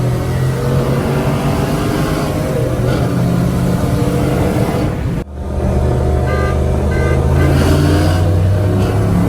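A vehicle engine running steadily at speed. The sound breaks off abruptly about five seconds in and then picks up again.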